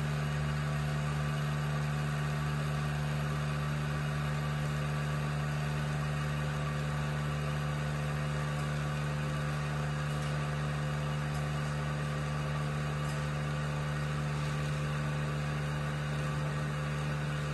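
Vacuum pump on a sigma-blade mixer running steadily, with an even hum at one pitch, pulling a vacuum in the sealed mixer tank.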